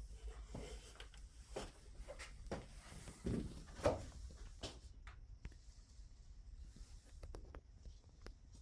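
Faint, irregular light taps and clicks from paintless dent repair work on a car's roof panel, with a couple of slightly louder knocks a little past the middle, over a low hum.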